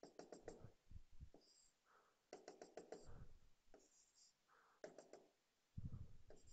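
Faint taps and scratches of a stylus drawing lines on a digital whiteboard, in several short bursts with pauses between.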